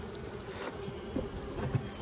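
Honeybees humming around an open hive, a steady buzz, with a few light knocks from the hive tool and frames.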